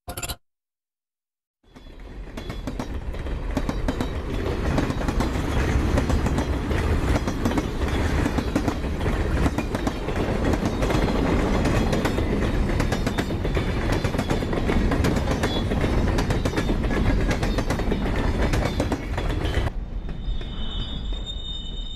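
A train running on rails: a heavy rumble with a rapid clatter of wheels over the rail joints, swelling in about two seconds in after a brief sound and a short silence. Near the end it gives way to a quieter sound carrying high steady tones.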